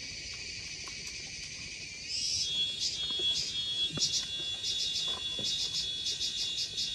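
Insects chirring: a steady high hiss, joined about two seconds in by a louder insect with a steady high tone and a fast, even pulsing of about five chirps a second.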